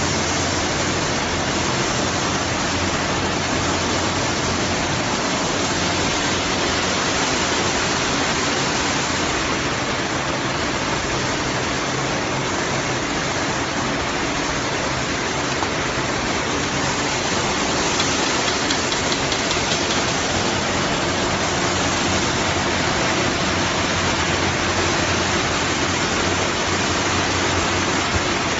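Stainless-steel French fries production line running: a steady hiss over a low machine hum, unchanging throughout.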